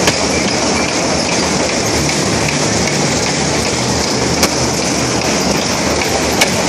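Carnival ride's train of cars running fast round its circular track: a steady, loud rumbling rattle, with a few sharp clicks near the start and about four and six seconds in.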